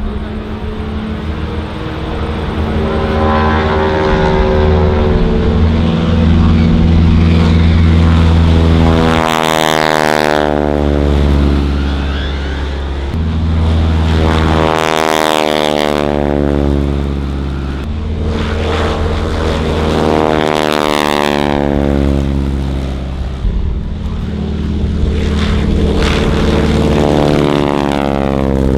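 North American Harvard (T-6 Texan) trainers' radial engines at full power on takeoff, four aircraft passing one after another. The engine note drops in pitch as each one goes by.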